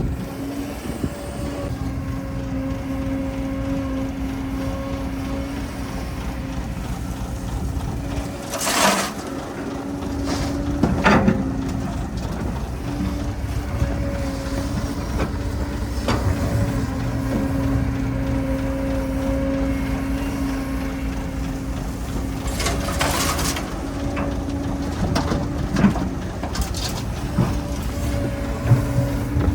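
Heavy diesel earthmoving machinery running steadily with a constant hum, with a few short clanks or scrapes, two of them about a third of the way in and more near the end.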